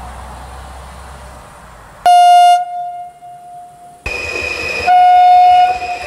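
Horn of an Elron Stadler FLIRT electric train. A short, loud low blast about two seconds in fades away. From about four seconds a higher note sounds, with a second loud low blast over it around five seconds in.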